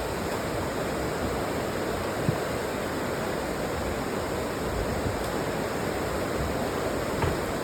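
A river in flood rushing past: a steady, even rush of fast-flowing floodwater.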